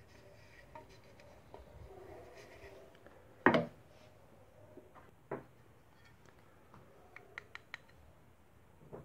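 Tin-can assembly handled and set down on a wooden floor: rubbing and handling noises, one sharp metallic knock with brief ringing about a third of the way in, a smaller knock about two seconds later, then a few light clicks near the end.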